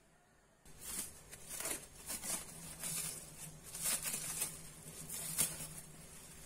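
Plastic cling wrap crinkling as gloved hands pick up and handle wrapped bundles of grape leaves, in irregular crackles starting about a second in.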